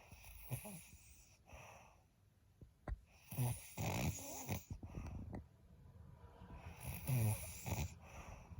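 Heavy snoring, repeating breath by breath: softer breaths at first, then two loud, rough snores about three and a half seconds apart.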